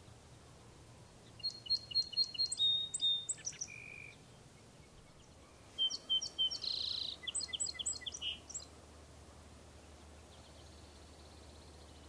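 Song sparrow singing two songs, about a second and a half in and about six seconds in. Each opens with a few evenly spaced clear notes and runs into buzzy notes and a quick trill. A faint high trill from another bird near the end.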